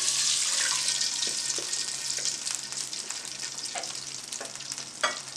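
Cold milk hitting hot ghee in a wok: a loud, high sizzle that starts as the milk is poured and slowly dies down as the pan cools, with a few light clicks.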